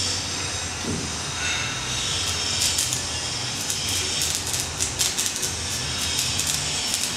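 Stick-welding arc crackling as a welding rod burns, the arc fed from lithium batteries through jumper cables. The crackle of sharp pops comes thick and fast from about two and a half seconds in.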